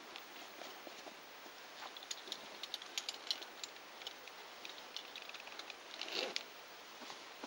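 Light clicking and clinking of metal rope gear, with rustling as a caver handles harness and rope; the clicks come in a scattered cluster a couple of seconds in, and a brief louder rustle follows near the end.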